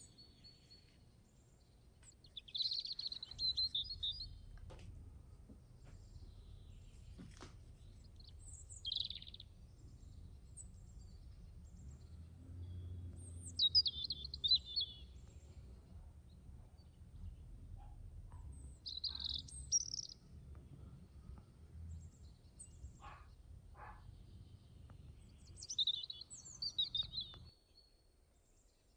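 Small birds chirping, in about five short phrases a few seconds apart, over a low steady rumble that cuts off near the end.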